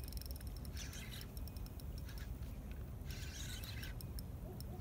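Spinning fishing reel ticking rapidly, with two short spells of whirring about a second in and three seconds in, as a hooked channel catfish pulls against the bent rod. A low steady rumble runs underneath.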